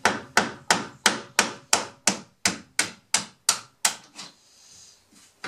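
Hammer tapping a stubby screwdriver against the bottom of a door hinge pin, driving the pin up out of the hinge. A steady series of sharp taps, about three a second, stops about four seconds in, with one more tap at the very end.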